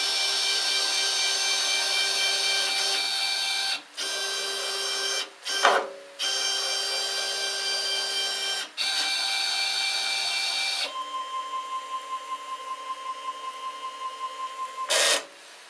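3040 hobby CNC mill's stepper-driven axes traversing in an air-cutting test run with no cutter or stock: a steady multi-tone whine, cut by a few brief pauses between moves. About two-thirds of the way through it turns quieter, becoming one steady tone with fast even pulsing, about five a second, and a short louder burst comes near the end.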